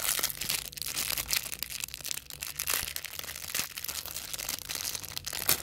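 Thin plastic packaging crinkling and tearing as a small toy piece is unwrapped by hand: a dense run of crackles that ends in one sharp crack.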